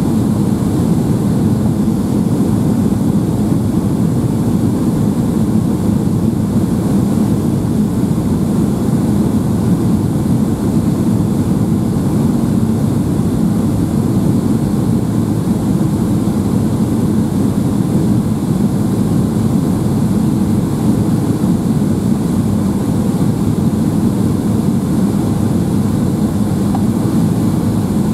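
Steady cabin noise inside a Boeing 757-200 on approach with flaps extended: a loud, even low rumble of engines and airflow.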